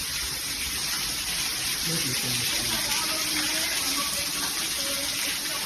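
Steady rush of running water, with faint voices underneath.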